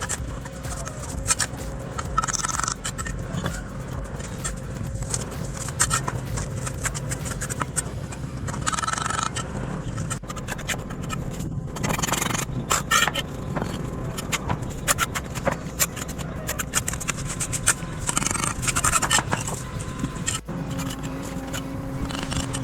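Scraping and scratching of a hand tool on masonry, with many small knocks and clicks throughout.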